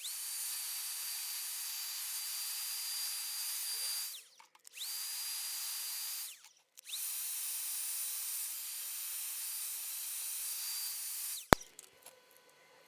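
A small high-speed electric hand tool runs in three stretches of a few seconds each, with short breaks between. Its motor gives a steady high whine over hiss, rising as it spins up and falling away as it stops. A single sharp click follows near the end.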